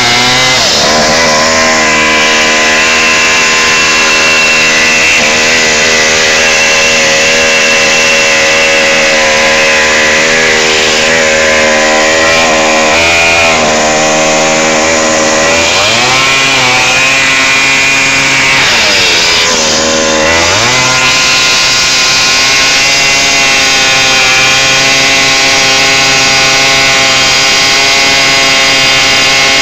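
Minibike's small air-cooled engine held at high revs while its rear tyre spins against the pavement in a burnout, shredding a cut flat tyre off the rim. The engine note dips and climbs back up a few times.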